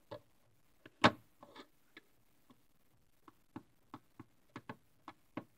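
Faint, irregular clicks and taps of fingers and nails pressing Play-Doh into a plastic popsicle mold on a wooden table, with one sharper click about a second in.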